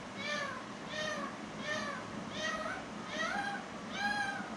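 Green parakeet giving a string of short, arching, pitched calls, evenly repeated at about one every two-thirds of a second.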